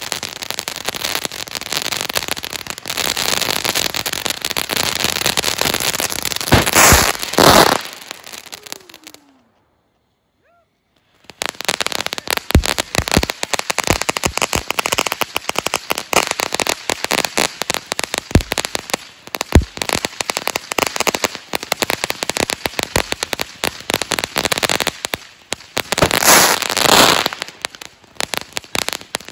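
Brothers Fireworks 'Pure Fantasy' ground fountain spraying sparks with a dense, continuous crackle and hiss, swelling louder twice. It stops completely for about two seconds about a third of the way in, then resumes.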